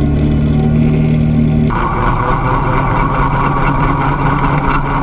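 ATV engine running steadily while towing a utility spreader. About two seconds in, the sound changes abruptly to a closer, hissier engine sound from behind the machine near its muffler.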